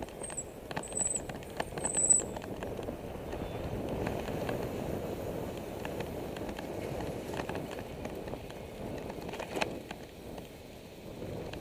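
A bicycle rolling along a paved path, heard from a camera riding on the bike: a steady rush of wind and tyre noise with scattered rattles and knocks from bumps. A few short high chirps in the first two seconds.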